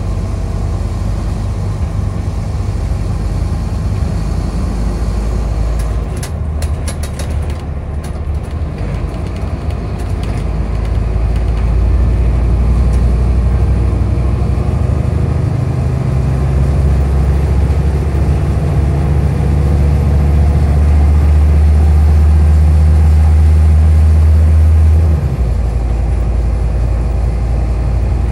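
Scania bus engine heard from inside the passenger saloon while under way, a low drone that grows louder and steps up in pitch twice as the bus gets going, then drops back suddenly near the end. A few short rattling clicks come about six seconds in.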